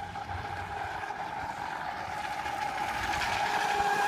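RC catamaran boat's motor giving a steady high whine as the boat runs on the water, slowly growing louder as it comes closer.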